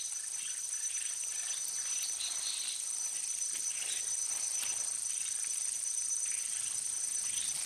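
Steady high-pitched chorus of insects, holding two constant shrill tones, with faint irregular rustling beneath.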